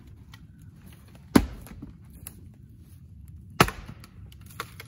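Axe blows splitting firewood rounds: two loud, sharp strikes about two seconds apart, with a few lighter knocks between.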